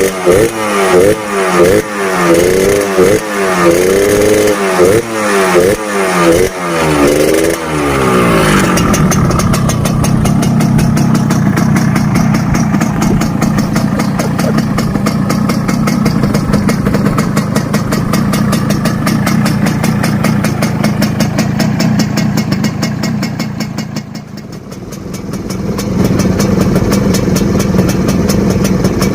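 Yamaha RX-King two-stroke single-cylinder motorcycle engine running through an exhaust hollowed out ('bobok') for a crisp, rasping 'garing ngorok' tone. For the first eight seconds or so it is revved in a quick series of throttle blips. It then holds a steady fast idle, dips briefly a few seconds before the end, and picks back up.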